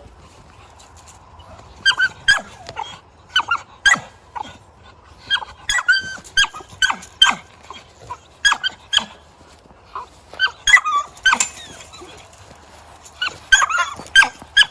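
American Pit Bull Terrier puppy giving short, high-pitched barks and yips in scattered bursts, with brief pauses between them.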